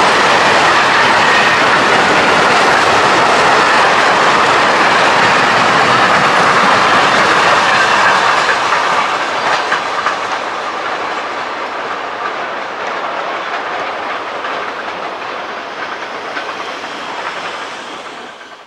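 Long intermodal container freight train rolling past, its wagon wheels running over the rail joints. The sound is loud and steady at first, then fades from about eight seconds in as the last wagons draw away.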